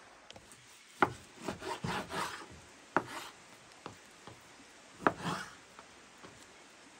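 A knife cutting raw beef on a wooden cutting board: three sharp knocks of the blade on the board, about two seconds apart, each followed by a short scraping.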